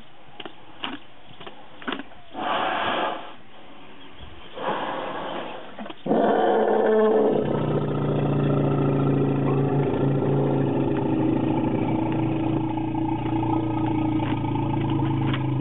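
Asian elephant giving a roar-rumble combination call. A few short bursts of noise come first; about six seconds in a loud, harsh roar starts, and a second later a low, steady rumble joins it, the two sounding together.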